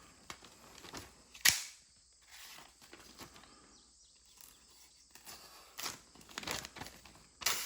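Paper rasping and tearing in short, scratchy strokes as a dull kitchen knife drags through it, the sign of an edge that needs sharpening. The loudest rasp comes about one and a half seconds in, with a few more near the end.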